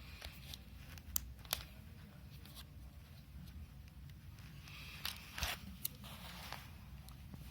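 Small screwdriver working at the latch of a mechanical keyboard switch on a desoldered circuit board: a few faint clicks, two about a second in and a cluster with a short scrape about five seconds in.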